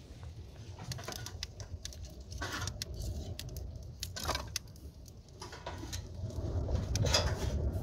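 Wood fire crackling inside a clay tandoor oven while sticks of firewood are knocked and laid into it. Under the crackles runs a low rushing that grows louder toward the end as the fire takes hold.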